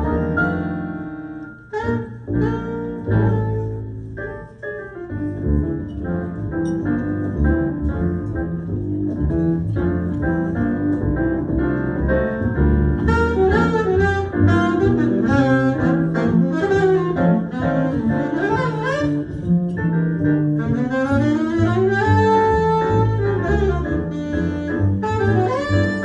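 Live jazz with a saxophone playing a melodic line over double bass, including several sliding notes late on.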